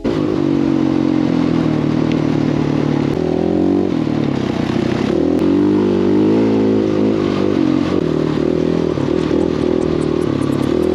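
Dirt bike engine running under way, its pitch rising and falling with the throttle, over a steady rushing noise.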